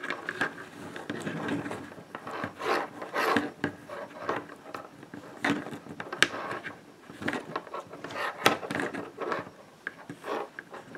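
Paracord rubbing and sliding as it is drawn through a loop and cinched into a cobra knot against a plastic buckle: irregular scraping and rustling handling noise, with a few sharper ticks.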